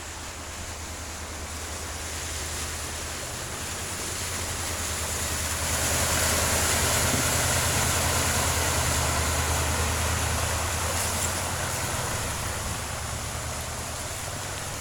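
A truck driving through floodwater: a low engine drone with the rush and splash of water thrown from its wheels. It builds, is loudest about halfway through, then fades as the truck passes.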